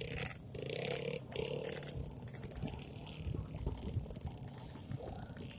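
Motocross bikes' engines revving on the dirt track, strongest in the first second and a half, then fading to a lower, steadier running.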